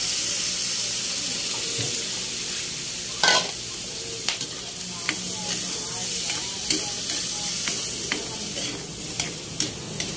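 Pork, onion, garlic and shrimp paste sizzling in a hot pan as a little water goes in, then a metal utensil stirring and scraping the pan with sharp clicks, the loudest about three seconds in.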